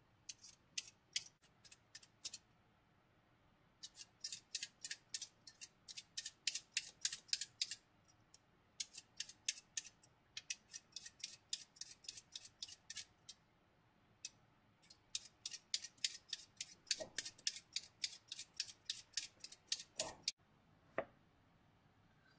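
Vegetable peeler scraping the skin off a potato in quick, sharp strokes, about four or five a second, in runs broken by short pauses. The strokes stop suddenly near the end.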